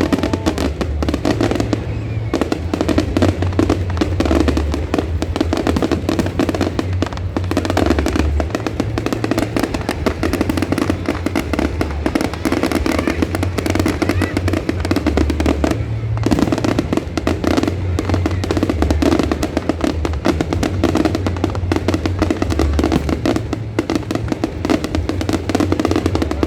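A fireworks display: a dense, continuous crackle of bursts and bangs with no pause, over loud music with a steady, changing bass line.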